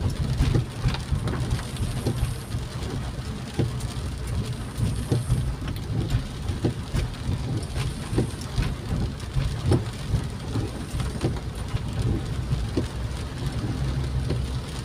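Heavy rain hitting a moving vehicle's windshield and roof in many scattered small taps, over a steady low rumble of the vehicle running on the wet road.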